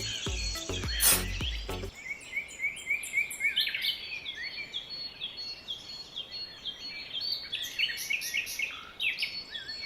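Songbirds chirping, with many short, quick calls in a steady stream. About the first two seconds are music with a beat.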